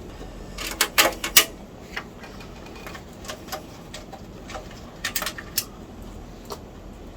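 Scattered small clicks and knocks of computer parts being handled inside a PC case, irregular and in brief clusters.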